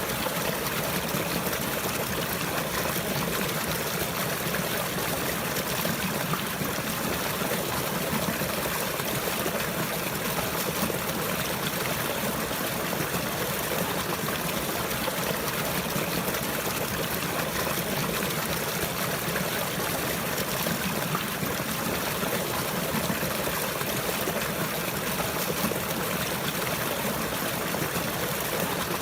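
Running water trickling in a steady, unbroken flow, like a small stream.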